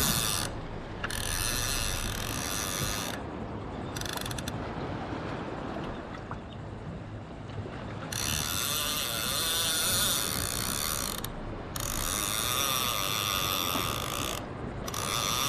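Fishing reel ratcheting in repeated bursts of one to three seconds, with quieter gaps between them.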